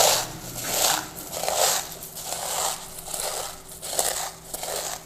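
Corn flakes being crushed by hand in a small stainless steel bowl: dry crunching that comes in repeated squeezes, a little more than one a second.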